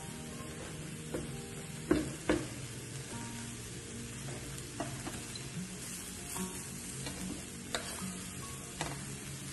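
Shrimps, tomato halves and red onion halves sizzling on a hot electric grill plate, a steady sizzle with a few sharp clicks scattered through it.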